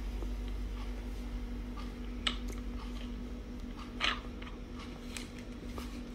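Glass of freshly poured soda over ice fizzing, with scattered small crackles and pops and two louder clicks about two and four seconds in, over a steady low hum.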